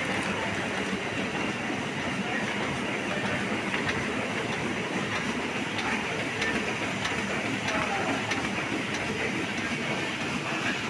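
Heidelberg four-colour offset printing press running: a steady mechanical clatter with light, regularly spaced ticks.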